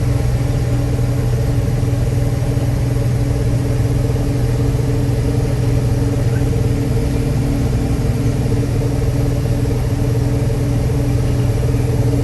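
Combine harvester running steadily in a soybean field, a loud even drone of engine and machinery with a constant hum.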